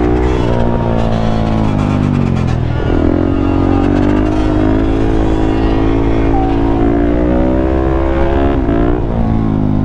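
Suzuki DRZ400SM supermoto's single-cylinder four-stroke engine running under load, the revs falling and climbing again twice, about three seconds in and near the end.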